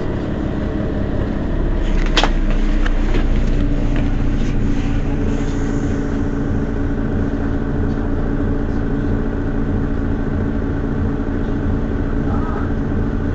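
Mercedes-Benz Citaro city bus idling at a standstill, a steady engine rumble. About two seconds in there is a brief sharp noise, and from about three seconds a steady hum joins the idle.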